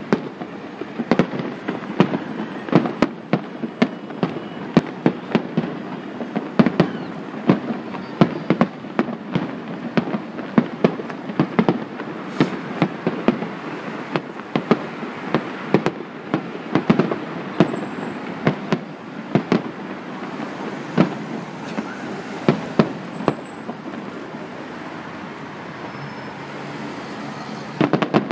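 Aerial fireworks shells bursting in quick succession, several sharp bangs a second over a steady background rumble. The bangs thin out for a few seconds and pick up again near the end.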